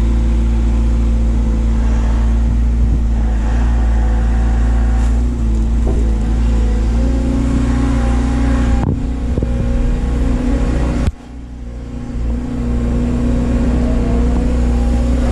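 Doosan DX180 excavator's diesel engine running steadily at working speed. About eleven seconds in the level drops suddenly, then builds back up.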